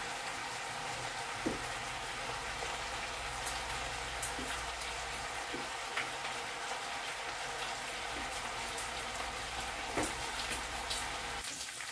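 Bacon frying in oil in a pan, a steady sizzle with a few sharp pops.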